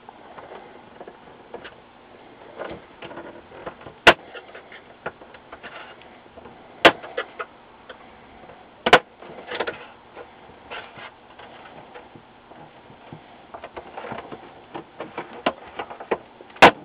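Plastic back cover of a Viewsonic VX2235wm LCD monitor being pried off with a small flat-bladed screwdriver: sharp snaps as the case's release tabs pop loose, four loud ones spread across the stretch with the last near the end, and light scraping and clicking of plastic in between.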